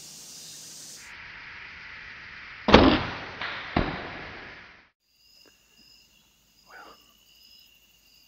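Bow shot: a loud, sharp crack of the bowstring's release a little under three seconds in, followed about a second later by a second, weaker sharp smack.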